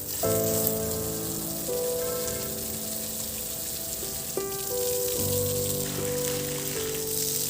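Background music of soft held chords that change every second or so, over a steady hiss.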